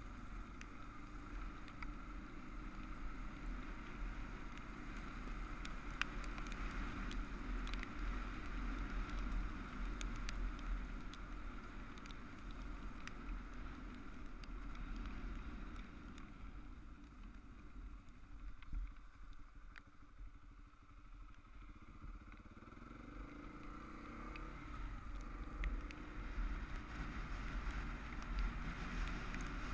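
Adventure motorcycle being ridden, its engine running under steady wind noise, with small ticks of gravel under the tyres in the first half. The level drops off past halfway, then the engine note rises as the bike speeds up again.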